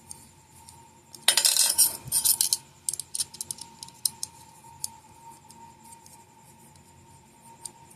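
Small metal tools and pedal parts clattering and clinking on a workbench. A dense second-long rattle about a second in is followed by scattered single clinks. A faint steady high hum sits underneath.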